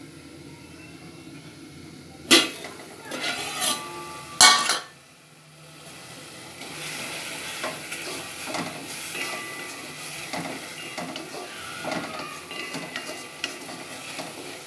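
Cookware clattering loudly three times in the first five seconds. Then, from about six seconds in, chopped tomatoes sizzle in a pot while a spatula stirs and scrapes them.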